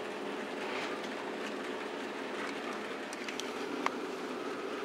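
HO-scale model trains running on the layout: a steady electric motor hum with wheels rolling and ticking over the track, and one sharp click about four seconds in.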